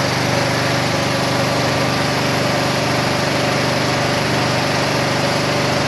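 Portable gasoline generator running steadily on propane fed through a tube into its air intake, with no conversion kit; the engine holds an even speed.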